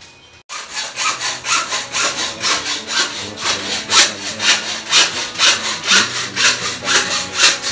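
Hand sawing: steady back-and-forth saw strokes, about three a second, starting half a second in after a cut.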